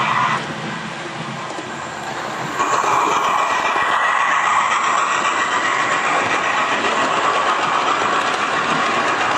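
Hornby OO gauge A4 model steam locomotive with a TTS sound decoder running past with its coaches: the loco's recorded steam sound from its onboard speaker mixed with wheels clicking over the rail joints. Louder from about two and a half seconds in as it draws level.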